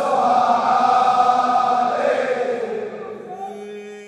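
Closing held note of a Shia mourning chant (latmiyya), a chorus of voices sustaining a drawn-out chord that fades out over the last second or so.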